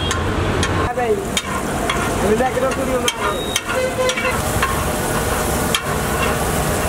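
Metal spatula clattering and scraping on a flat iron tawa as chopped onion and green capsicum are stirred, with sharp clicks throughout. From about four seconds in the vegetables sizzle in hot fat.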